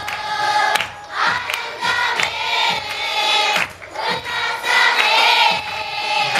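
A group of children singing a worship song together loudly, with hands clapping along.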